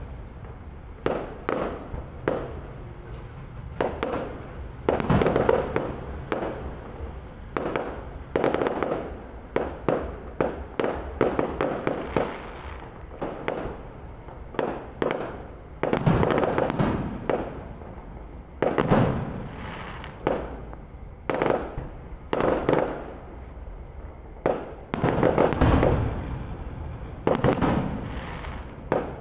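Aerial firework shells bursting, many sharp bangs at irregular intervals and several in quick clusters, each trailing off in a rolling echo.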